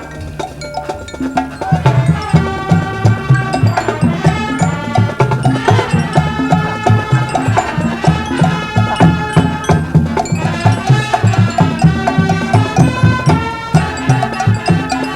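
Marching band of brass, winds and percussion playing. It starts softer, then about two seconds in the full band comes in loud over a driving, even low pulse of drums and low brass.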